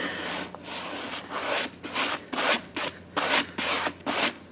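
Short, irregular rubbing and scuffing strokes against rubber as the tires are handled, about seven or eight strokes, the kind of wiping used to read the size off a dry-rotted sidewall.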